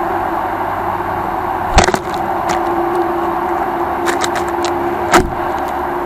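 Steady mechanical hum over background noise, broken by two sharp knocks close to the microphone: one a little under two seconds in and another about five seconds in. A few faint ticks fall between them.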